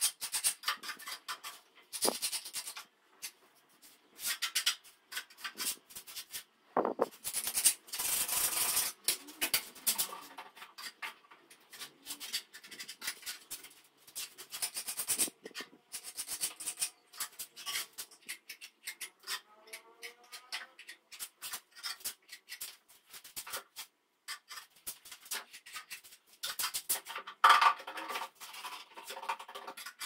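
Irregular bursts of scraping and rubbing on a plaster wall, broken by short pauses, with small knocks and rattles of tools being handled on a concrete counter.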